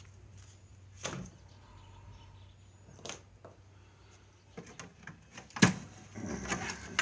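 Tools and parts knocking and clinking as they are handled and moved around in an old Craftsman metal toolbox. There are scattered single knocks at first, then a busier clatter in the second half, with the sharpest knock about two thirds of the way through.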